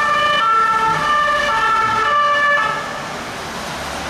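Electronic two-tone hi-lo siren of a toy police vehicle, alternating between two pitches about every half second, stopping about two and a half seconds in and leaving a steady hiss.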